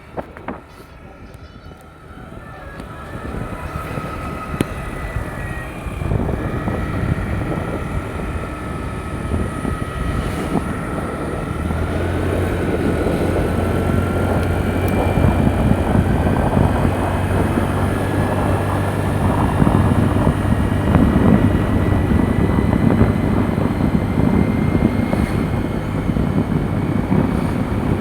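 Honda Xoom 125 scooter's engine running while riding. It gets louder over the first few seconds as the scooter gathers speed, then holds steady, with a whine that wavers up and down and a low hum from about twelve seconds in.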